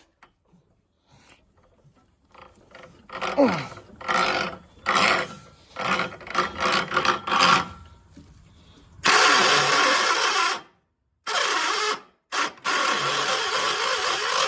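Starter motor of a 1976 John Deere 300 garden tractor, binding: a string of short, uneven engagement bursts, then three longer cranks with a grinding whir, broken by two short pauses. It is the sound of a starter in a bind, not a catching engine.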